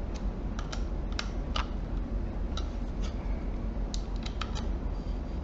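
Scattered light clicks and taps, about a dozen at irregular intervals, from handling and screwing a SSD into the PlayStation 4 Fat's hard-drive bracket, over a steady low hum.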